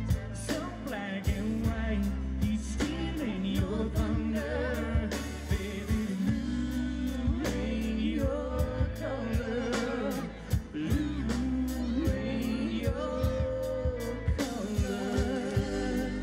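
Live band playing a song: sung lead vocals over a drum kit keeping a steady beat, with guitars and keyboard.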